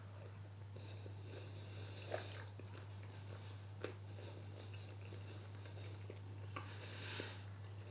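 A person quietly chewing a mouthful of chicken curry, with a few faint mouth or cutlery clicks over a steady low hum.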